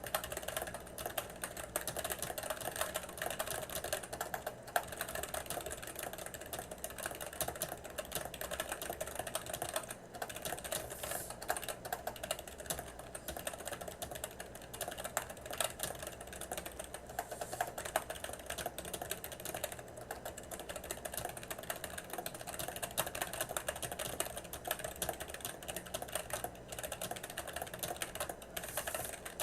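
Computer keyboard typed on rapidly and continuously, a dense stream of key clicks at about 110 words per minute during a typing test.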